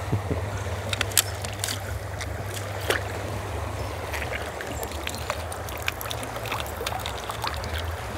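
Steady rush of flowing river water with a low rumble underneath, dotted with scattered small clicks and knocks.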